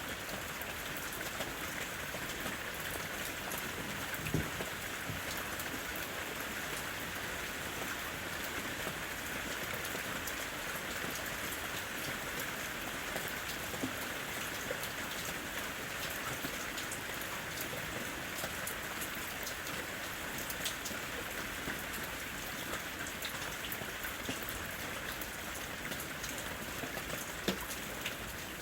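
Steady rain falling, with scattered close drops ticking through it. Two louder drop knocks stand out, one about four seconds in and one near the end.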